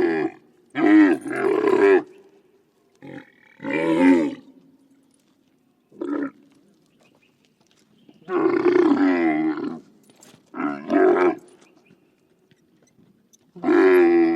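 A cartoon monster's voiced roars and growls: a string of separate pitched roars, some short and some over a second long, with pauses between them.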